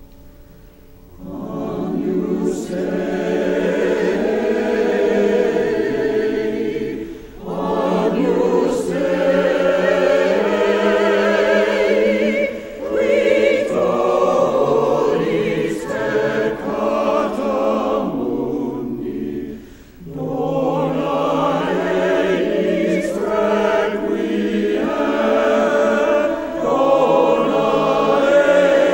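Church choir singing a slow anthem in many voices. It enters about a second in, with brief breaks between phrases twice.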